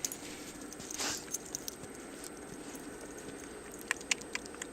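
A golden retriever handling something in the snow: faint scattered crunches and clicks over a steady low hiss, with a few sharper clicks near the end.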